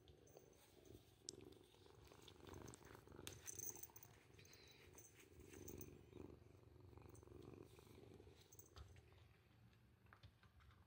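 Orange tabby cat purring softly, a steady low rumble, as it rubs against a stroking hand and asks for affection. A few light clicks of handling sound over it.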